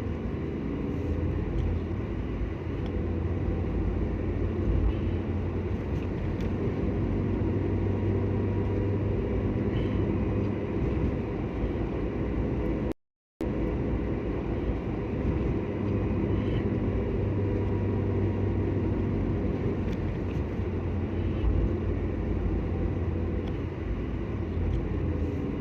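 A car being driven: steady low rumble of road and engine noise. It is broken by a half-second gap of silence about halfway through.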